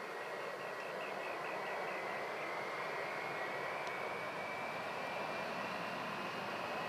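Airbus A320-232's two IAE V2527-A5 turbofan engines at climb power just after takeoff: a steady jet engine noise with a thin whine that rises slowly in pitch.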